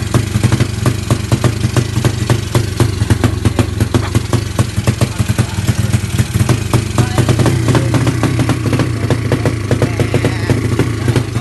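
Single-cylinder engine of a Yamaha Mio scooter built up to 200cc, idling steadily with a choppy, pulsing exhaust note.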